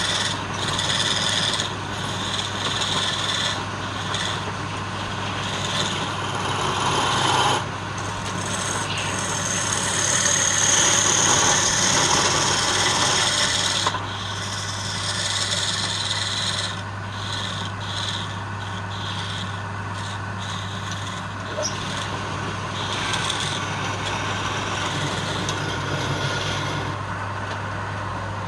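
Wood lathe running with a steady low hum while the spinning wood is worked, a rough scraping noise that swells and fades.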